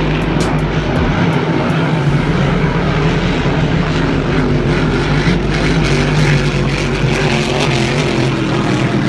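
Several Grand Prix class racing hydroplanes running flat out across the water, their engines blending into one steady, loud drone.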